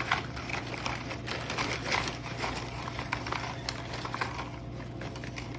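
Crackers clattering as they are put by hand into a plastic snack-box compartment: a run of quick, light clicks and rattles that thins out in the second half.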